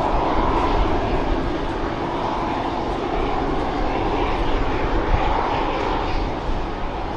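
Boeing 717 airliner's twin Rolls-Royce BR715 turbofan engines: a steady rushing jet noise over a low rumble, holding level throughout.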